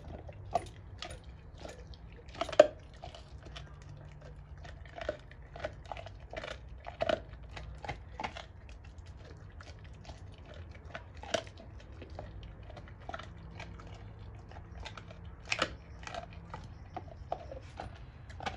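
Doberman chewing a raw pork bone with meat on it: irregular crunching and gnawing, broken by a few loud cracks as its teeth bite into the bone.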